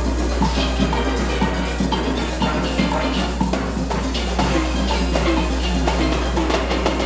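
Steel band playing a fast, rhythmic calypso arrangement on steel pans, with drums beating underneath.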